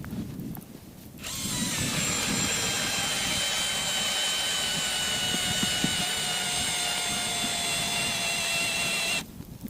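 Cordless drill spinning a hand ice auger, boring a hole through lake ice. The motor whine starts about a second in and runs steadily, its pitch slowly dropping under load, then cuts off abruptly near the end.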